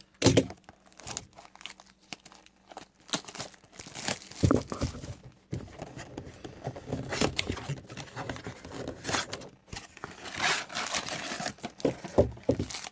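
Cardboard blaster box and foil wrappers of trading-card packs being torn open and crinkled by hand, with irregular crackling and rustling and a few sharper rips.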